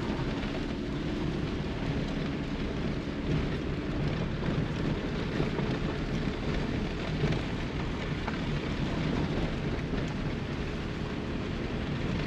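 Tyres rolling over a dirt and gravel track, heard from inside the car's cabin, a steady rumbling noise with the engine running low underneath.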